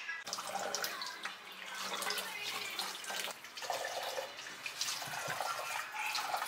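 Tap water running and splashing over raw chicken pieces in a plastic mesh colander as a hand turns them over to wash them, with drips and wet knocks.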